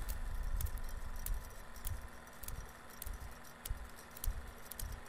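Super 8 film projector running: faint, irregular clicking and crackle over a low, steady hum.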